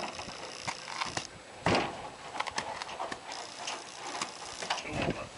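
A filly's hooves knocking and scuffing on the floor of a stock trailer as she steps up into it: a few irregular knocks and clicks, with a couple of heavier thuds.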